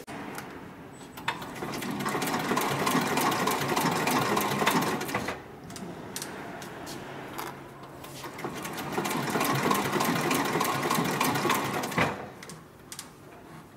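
Heavy-duty 204 102 MD decorative-stitch sewing machine for upholstery and leather, stitching a strap in two runs of about four seconds each with a short pause between, the needle going with a rapid, even clatter.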